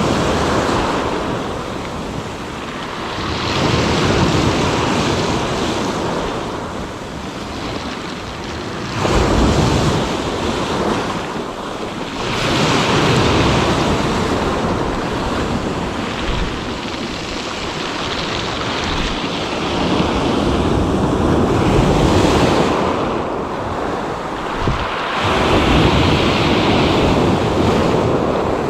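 Sea waves breaking on the shore, the wash swelling and falling back every few seconds, with wind buffeting the microphone.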